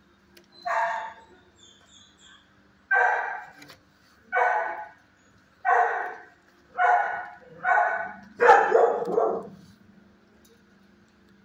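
Dog barking in a shelter kennel: about seven barks at uneven gaps of roughly a second, the last one longer.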